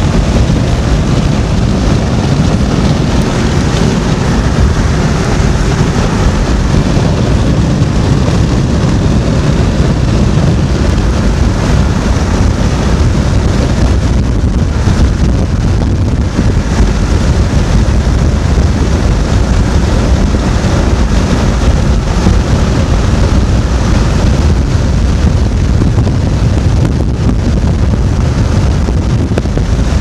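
Loud, steady rush of wind and road noise from a moving car, with wind buffeting the microphone.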